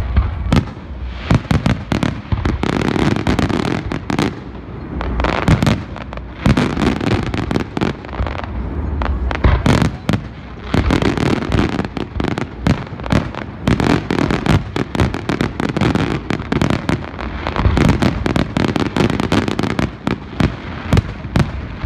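Aerial firework shells bursting in a dense barrage: rapid, overlapping sharp bangs and deep booms mixed with crackling, with no let-up.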